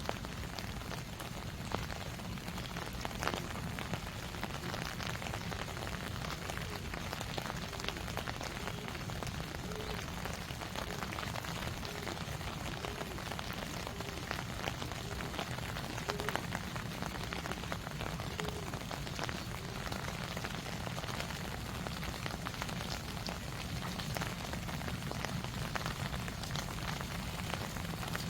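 Steady rain falling, with many sharp ticks of single drops striking close by.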